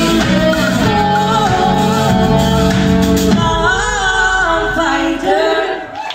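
Live rock band playing with a woman singing, heard from among the audience. About three and a half seconds in, the bass and drums drop out, leaving the voice and higher instruments as the song closes.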